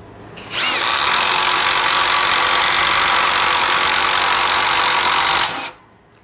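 Metabo HPT triple-hammer cordless impact driver on its highest setting, driving an Irwin Speedbor spade bit into a wooden board. It spins up with a brief rising whine about half a second in, runs steadily and loudly for about five seconds, and stops suddenly near the end.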